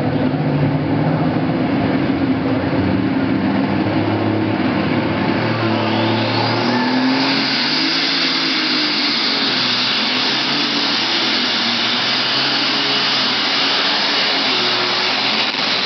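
Modified pulling tractor's engine running flat out under load as it drags the weight sled, its pitch shifting as it goes. About six seconds in a short rising whine breaks in, and from then on a loud hissing rush covers the engine note.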